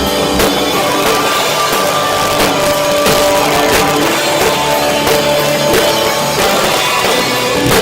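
Live rock band playing loud, with distorted guitars and a drum kit. It was recorded on a cheap cell phone, so the sound is harsh and overloaded.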